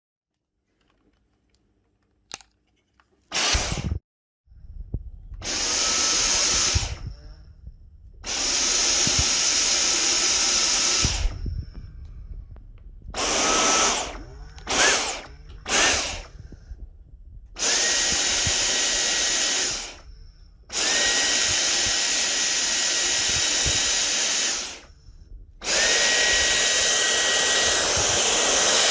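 Dyson V10 cordless stick vacuum switched on and off about nine times, some runs under a second and others several seconds long. Each time the motor spins up with a quick rising whine, runs with a steady high-pitched whine and hiss, then cuts off. The later runs hold a higher steady tone.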